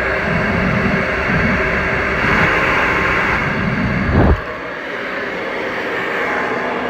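Alpha Wave Pro infrared hair dryer running, a loud steady rush of air. A gusty low rumble of airflow rides on it and cuts off about four seconds in, while the steady rush goes on.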